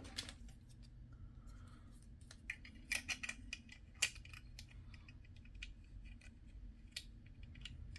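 Small plastic and diecast model-kit parts clicking and tapping as they are picked up and handled, with a cluster of quick clicks a few seconds in and single sharper taps later.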